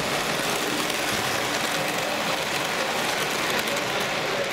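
S gauge model train running past close by, its cars' wheels rolling on the track in a steady rushing noise.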